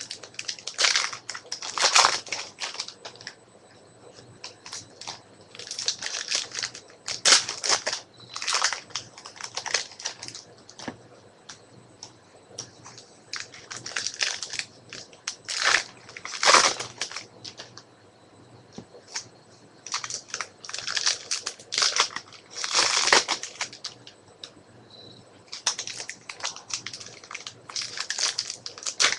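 Foil trading-card pack wrappers crinkling and tearing as packs are ripped open by hand, in short irregular bursts with a few quiet stretches between.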